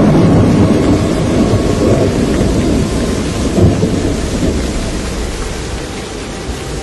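A loud, deep storm rumble with a hiss of rain over it, loudest at first and easing off through the second half.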